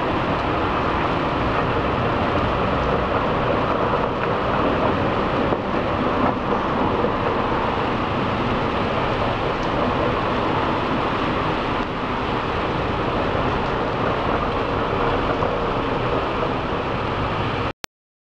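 Steady rushing noise of a thunderstorm, rain and wind together, with no distinct thunderclap; it cuts off suddenly near the end.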